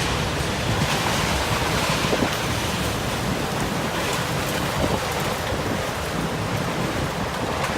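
Typhoon wind blowing hard and buffeting the microphone as a steady rushing noise that rises and falls in gusts, with a couple of faint knocks.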